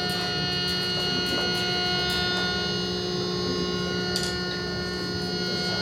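Steady electrical hum and buzz from guitar and bass amplifiers left on at a live-house stage between songs, holding several fixed tones, with a few faint ticks.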